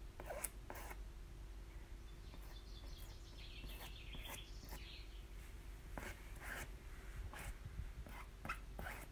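Faint short scrapes of a spatula spreader dragging chalk paste across a fine-mesh silk-screen stencil, a few strokes about a second in and a quicker run of them in the last three seconds.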